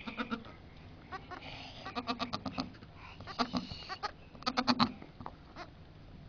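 Goat bleating several times, each bleat a quick quavering run of pulses, the loudest bleats coming near the end.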